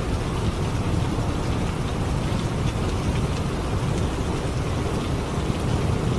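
Steady rain of a thunderstorm, fine drops pattering over a continuous low rumble of distant thunder, with no single clap standing out.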